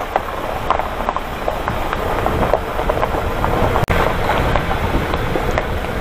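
Hyundai Porter 4WD truck driving down a rough dirt mountain road: a steady rumble of tyres on the gravel, with many small rattles and clicks from the truck.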